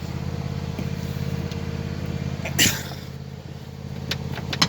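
Craftsman lawn tractor's small engine idling steadily, freshly pressure-washed. A short sharp burst of noise cuts in about two and a half seconds in, and a single click comes near the end.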